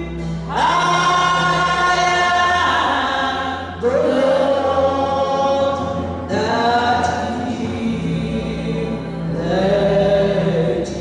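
Gospel worship singing in long, slow held phrases, four phrases in all, over a steady low accompaniment.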